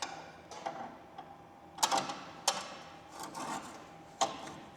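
Light metallic clinks, knocks and scrapes from steel hardware being handled as an all-thread rod is fitted through a leaf spring, with a few sharper knocks about two seconds in and near the end.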